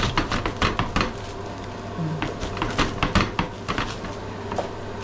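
Knife sawing through the hard crust of a sourdough loaf: a rapid, irregular run of crunching and crackling strokes.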